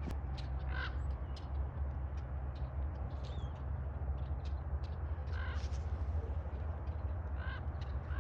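Crows cawing: three single caws spread a few seconds apart, over a steady low rumble and many short high ticks.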